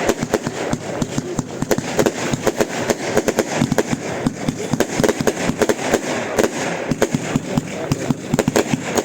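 Fireworks going off in a dense, unbroken volley: many sharp bangs and crackles every second.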